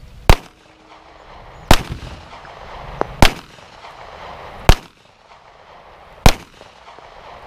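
Five shots from a Smith & Wesson Model 638 snub-nose revolver firing .38 Special 158-grain round-nose lead, spaced about one and a half seconds apart, each a sharp report with a short echo.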